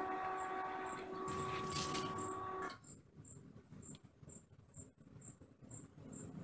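A steady machine hum with a few pitched tones that cuts off abruptly about two and a half seconds in. Then quiet, with a faint high chirp repeating about twice a second.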